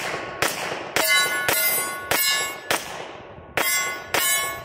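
Seven quick suppressed shots from a 10mm Hi-Point pistol, about one every half second with a short pause near the three-second mark. Each shot is followed by the clang of a steel target ringing and fading.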